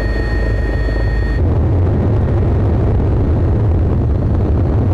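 Helicopter engine and rotor noise heard from on board, loud and steady. About a second and a half in, the high steady whine drops out and a heavier low rumble takes over.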